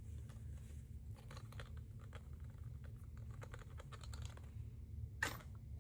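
Hands handling objects and packaging: a run of small clicks, scratches and crinkles, with a louder crinkle about five seconds in, over a steady low hum.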